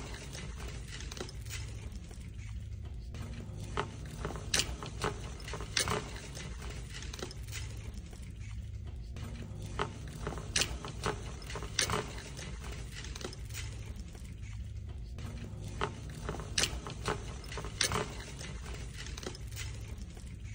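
Shopping cart being pushed over a store floor: a steady low rumble from the wheels, with irregular sharp clacks and rattles from the cart.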